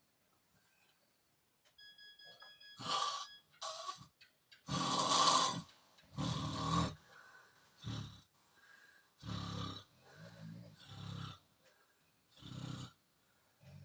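Snoring: rough, rasping snores in irregular bursts, about one every second or so.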